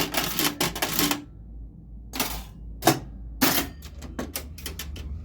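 1981 Gottlieb Mars God of War pinball machine starting a game: solenoids and relays clacking, a dense clatter in the first second and then scattered sharp clicks, over a steady low electrical hum. The solenoids are firing, so they are working.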